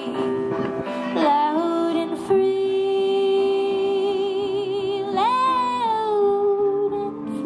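A woman singing lead with a live band, holding one long note with vibrato, then swooping up onto a note that slowly falls away near the end.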